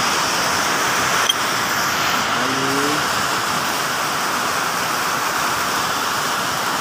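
Steady, loud hiss of background noise with no rhythm or pitch, and a brief snatch of a voice about two and a half seconds in.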